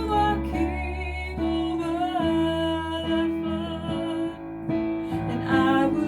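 Worship music played on acoustic guitar and keyboard, with sustained chords and a melody line over them.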